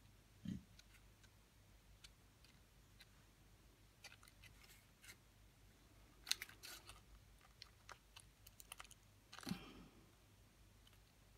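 Faint scattered taps and clicks of a marker tip dabbing dots onto folded paper, with a soft low thump about half a second in and another near the end.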